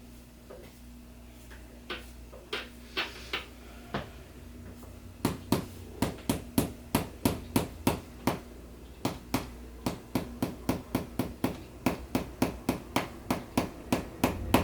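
A series of sharp taps, a few scattered at first, then a steady run of about three a second from about five seconds in.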